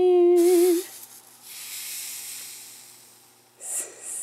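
A short hummed "mmm" at the start, then a hot Panasonic iron sizzling as it presses onto fabric freshly wet with spray starch; the hiss fades away over about three seconds, with a brief second hiss near the end.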